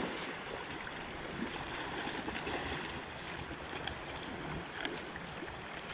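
Creek water rushing steadily, with a few faint ticks scattered through.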